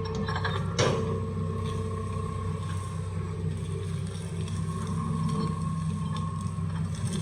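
Hitachi excavator's diesel engine running steadily under load while digging, with a single sharp knock about a second in and a few lighter clicks from the machine's moving parts.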